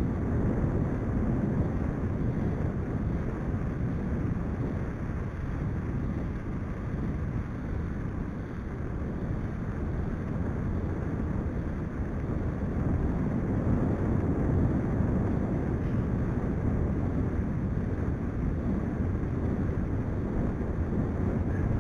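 Steady wind rumble on the microphone of a camera riding on a moving mountain bike on a tarmac lane. It dips a little, then grows louder again about halfway through.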